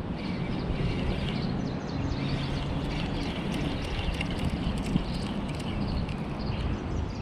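Steady low rumble of outdoor background noise, with faint bird chirps now and then.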